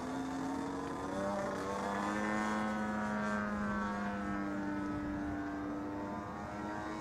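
Model aircraft's 35cc petrol engine and propeller droning in flight. The pitch drops about a second in and shifts again around four seconds in as the plane manoeuvres.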